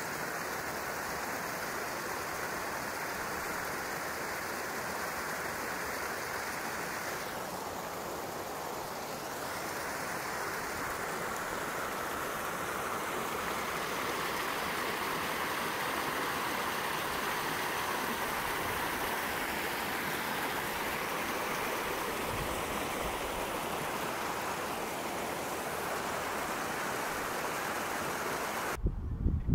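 Mountain creek running over rocks and small cascades: a steady, even rush of water that cuts off abruptly near the end.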